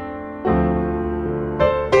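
Background piano music: sustained chords, with new notes struck about half a second in and twice more near the end.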